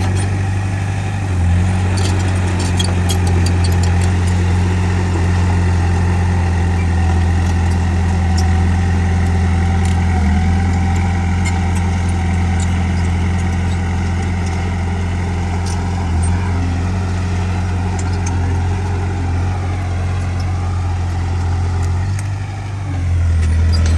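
Bulldozer's diesel engine running steadily, with a short dip in loudness near the end before it picks up again.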